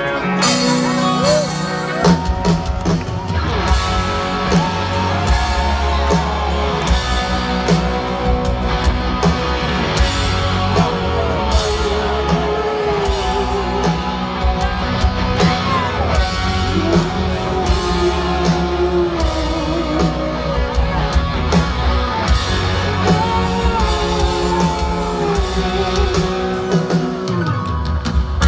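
A live rock band playing loudly, heard from the audience: electric guitars carrying a melody over bass and drums. The low end comes in about two seconds in.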